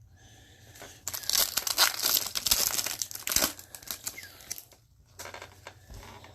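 A foil wrapper of a 2018 Bowman Chrome baseball card pack being torn open and crinkled for about three and a half seconds, starting about a second in, followed by lighter rustling.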